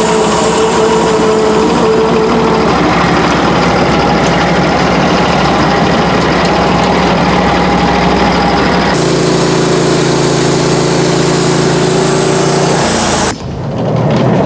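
Sawmill engine running steadily and loudly, with a hum of several held pitches that changes abruptly about nine seconds in and again near the end.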